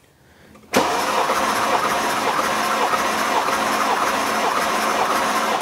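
Mercedes-AMG M157 5.5-litre twin-turbo V8 cranking over on its starter for a compression test, with a steady rhythm of compression pulses. It starts suddenly about a second in. The cylinder on test reads about 205 psi, in line with the healthy cylinders.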